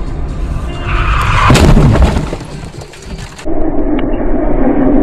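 Dashcam audio from a moving car: loud, steady road and wind rumble, with a sudden loud bang about one and a half seconds in and a steady droning tone over the last second and a half as another car swerves across in front.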